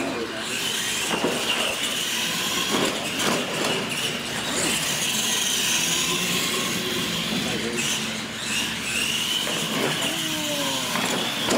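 Electric radio-controlled monster trucks running flat out side by side, their motors and gearboxes giving a steady high-pitched whine.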